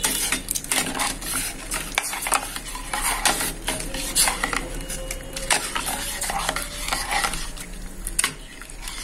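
Metal spoon stirring pumpkin chunks in water in a stainless steel pot, scraping and clinking against the pot's sides and bottom again and again.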